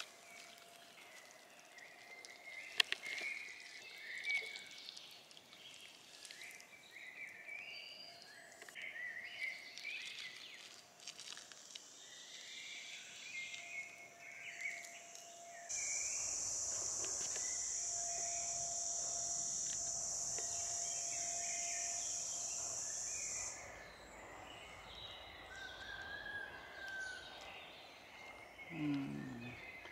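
Woodland ambience with birds chirping throughout. About halfway through, a steady high-pitched hiss starts abruptly, lasts about eight seconds and cuts off suddenly.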